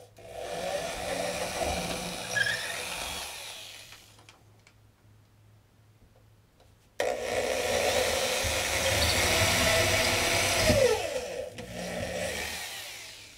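Corded electric drill boring 1/8-inch pilot holes through drywall into wood blocking, in two runs: about three and a half seconds at the start, then a second run that starts suddenly about seven seconds in and lasts about five seconds.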